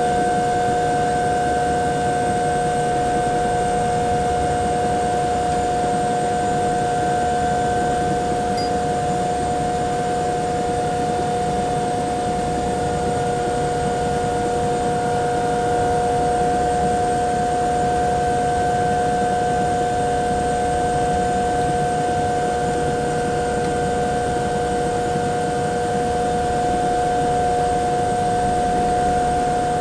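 Bell 212 helicopter's twin turboshaft engines at idle, heard from inside the cabin: a steady whine of several held tones over a constant rushing noise, unchanging in level.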